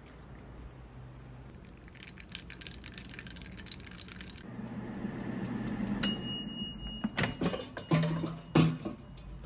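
Ice crackling and clicking in a glass of freshly poured iced hand-drip coffee. About six seconds in a loud beep sounds for about a second. Then come several sharp knocks and clatters as an air fryer basket and a plate are handled.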